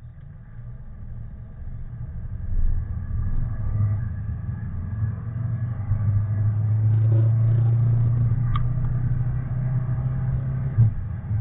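A 1982 Mercedes 300D's OM617 five-cylinder turbo diesel, heard from inside the cabin, pulling away from a stop and accelerating under load, with its overboost solenoid bypassed to test for lost power. The low drone grows louder over the first few seconds and then holds steady, with a short click late on.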